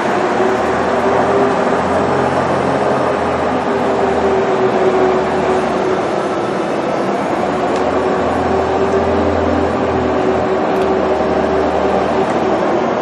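Ice resurfacer running on the rink: a steady engine drone with a low hum that swells and eases and a held mid-pitched whine over it.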